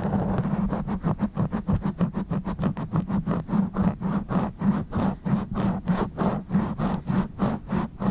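Fingers or an object scratching directly on a bare microphone's grille: rough, rapid back-and-forth strokes, about four or five a second, after a short stretch of continuous rubbing at the start.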